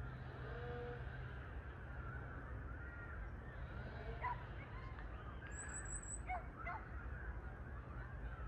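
A flock of birds calling, many short overlapping honk-like calls, over a steady low rumble. A brief high trill comes a little past halfway.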